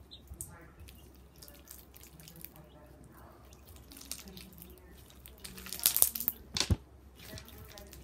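Slime being squished and stretched by hand, giving a cluster of wet clicks and pops about six seconds in.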